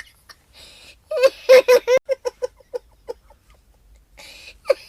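Young child laughing: a burst of quick, rhythmic 'ha-ha-ha' pulses a little over a second in, slowing as it dies away, with breathy gasps for air before it and again near the end, where the laughter starts up again.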